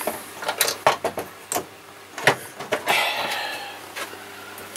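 Metal hand tools clinking and knocking as they are hung back on pegboard hooks: a run of sharp clicks over the first three seconds, then a short scraping rustle.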